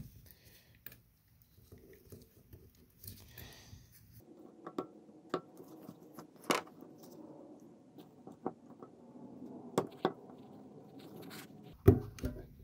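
Small metallic clicks and scrapes as snap-ring pliers work a retaining clip ring out of a brass air brake valve body, with a sharper click near the end.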